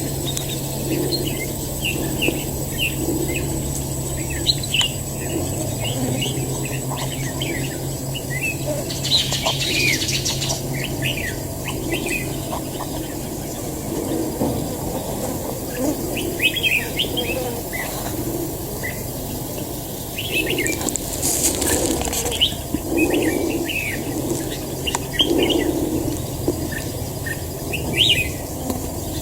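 Red-whiskered bulbuls calling with many short, quick chirps, joined twice by a brief burst of rustling.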